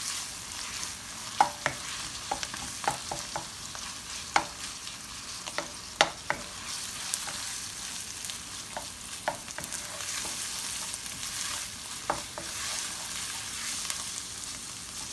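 Chopped meat and tripe sizzling in a hot pan while being stirred, the utensil knocking and scraping against the pan at irregular intervals.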